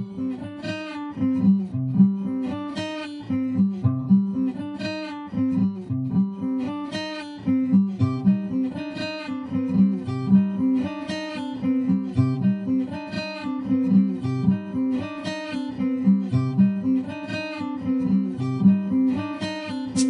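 Background music: a guitar picking a steady, repeating pattern of notes.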